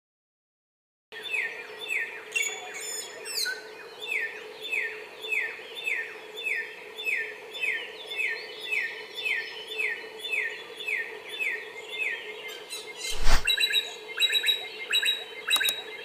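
A samyong, a black-headed, red-throated songbird, singing a fast run of short downward-sliding whistles, about two a second, over a steady hum. The song starts about a second in. About thirteen seconds in a loud click cuts across it, followed by a few sharper clicks.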